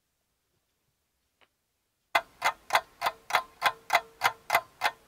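Silence for about two seconds, then a ticking-clock sound effect starts suddenly, sharp and even at about three ticks a second, with a faint steady tone under it.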